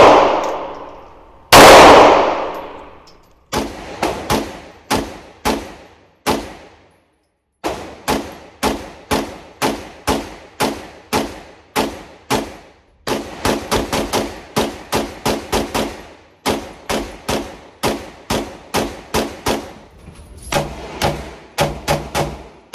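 Pistol shots in an indoor range. Two very loud single shots ring out with a long echoing decay, followed by rapid strings of shots, up to about four a second, each with a short ring.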